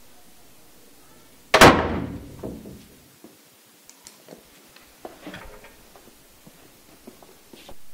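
A classroom door slams shut once, about one and a half seconds in, with a ringing tail. Soft rustling and light footsteps follow.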